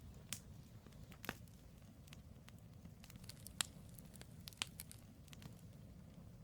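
Firewood logs burning in a campfire, crackling with irregular sharp pops over a low steady rumble. A few louder pops stand out, the loudest about three and a half seconds in.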